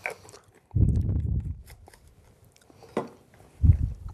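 Two spells of low, muffled rumbling close to the microphone, with a couple of sharp clicks of utensils on the bench.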